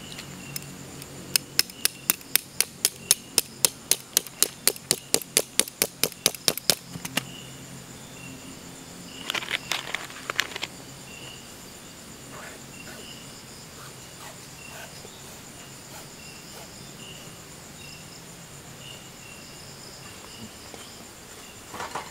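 A small metal camping hammer drives a tent stake into hard ground with a fast run of about two dozen sharp strikes, about four a second, stopping near seven seconds in. A brief clatter follows a few seconds later, and insects chirp steadily behind.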